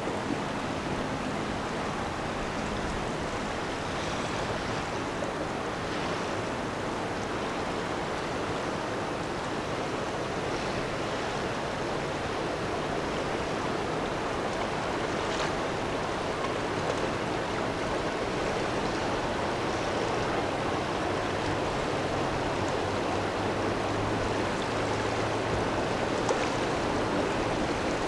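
Steady rushing of river water and wash, with a faint low engine hum from the passing lake freighter that grows slightly stronger near the end.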